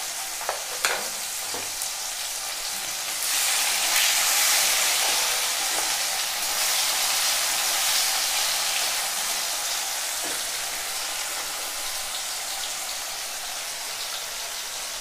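Chopped tomatoes and onions sizzling in hot oil in an aluminium kadai, frying down with salt to soften, with a few light clicks of stirring. The sizzle swells a few seconds in and then eases off.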